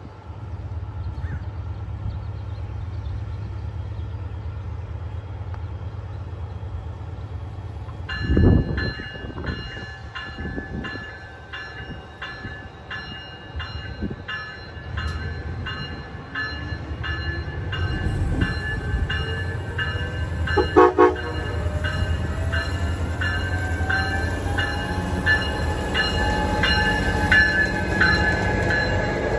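Siemens Charger diesel-electric locomotive of an Amtrak Pacific Surfliner idling, then departing. It gives two short horn taps about eight seconds in and two more about twenty-one seconds in. From the first taps on, the bell rings at about two strokes a second, and the engine's pitch rises as the train pulls away and draws level.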